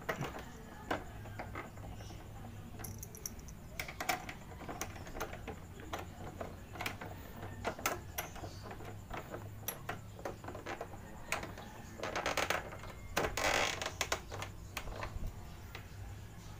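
Irregular metallic clicks and taps of a T-handle wrench on a gold bolt as it is turned into a scooter's plastic fairing. The bolt is threading into a plastic wall plug set in the stripped hole. Two short rattling stretches come about twelve and thirteen seconds in.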